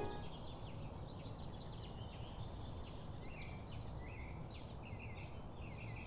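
Small birds chirping faintly, many short quick calls one after another, over a steady low background noise.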